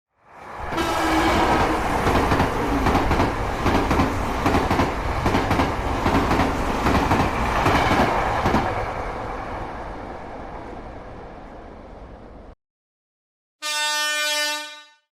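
A train passing with its wheels clattering on the rails, swelling up quickly, then fading away and cutting off suddenly. After a brief gap, a single short train horn blast sounds near the end.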